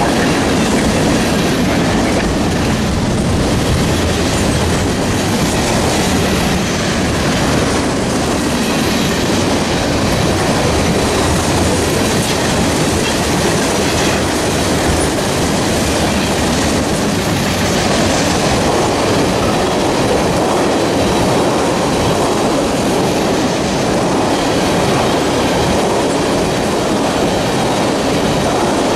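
A train passing close by, its wheels running steadily and loudly on the rails.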